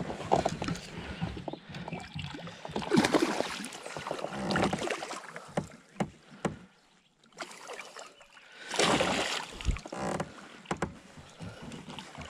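Handling noise on a fishing boat while a hooked bass is fought: irregular knocks and clicks with several louder swells of noise, and a brief lull about two-thirds of the way through.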